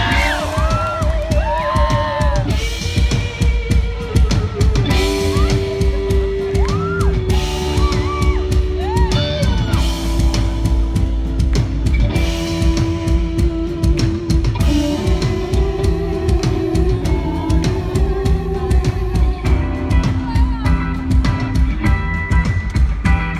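Live rock band playing: drum kit and bass pounding under electric guitar lines that bend and waver in pitch, with held notes over the top.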